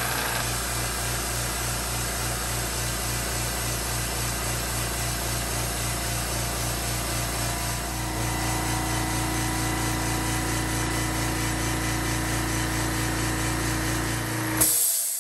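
Makita MAC320Q 3-gallon, 1.5 hp oil-free Quiet Series air compressor running steadily with an even, rapid pumping pulse, its pitch settling lower about halfway through as the tank builds pressure. It reads about 74 dB up close and about 70 dB a few feet away. It shuts off near the end with a brief hiss.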